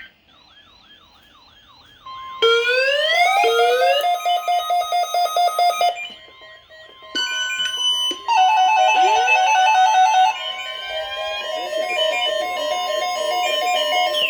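Many weather alert radios and alarm devices going off together for a NOAA Weather Radio Required Weekly Test. A warbling alarm sounds first. About two seconds in, a steady high alert tone starts, and loud rapid beeping and rising siren-like tones pile on. It thins out briefly around six seconds in, then more alarms join.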